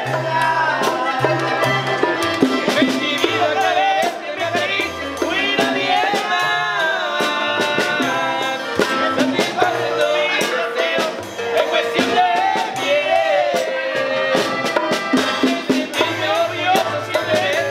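A live Mexican band playing: men singing over accordion, upright bass, guitar and a drum kit with congas and cymbals, with a steady beat and a bass line walking between notes.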